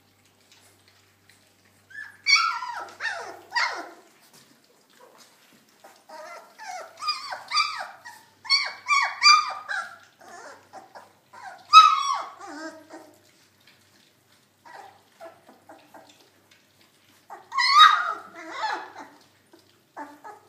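Labrador puppies whimpering and squealing as they jostle at a shared food tray, in high-pitched clusters of cries with quiet gaps between, the loudest about twelve seconds in.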